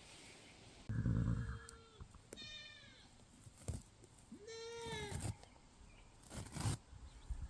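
Nubian goats bleating: several drawn-out, wavering calls, the longest starting about four and a half seconds in. Near the end come a few short knocks or rustles.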